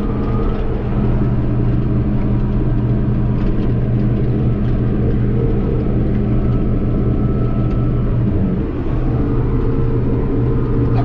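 Case tractor's diesel engine running steadily under load, heard from inside the cab while pulling a field sprayer, with a brief dip about three-quarters of the way through.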